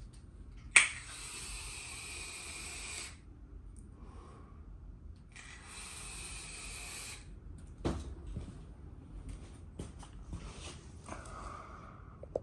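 Power drill running in two bursts of about two seconds each, with a steady whine, drilling out a stripped bolt hole for a bigger bolt; a couple of knocks follow.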